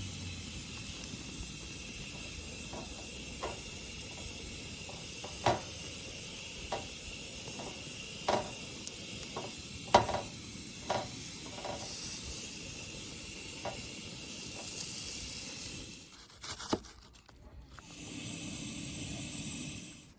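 A steady hiss with a few light clicks and taps scattered through it; the hiss cuts off sharply about sixteen seconds in, and a short duller noise follows near the end.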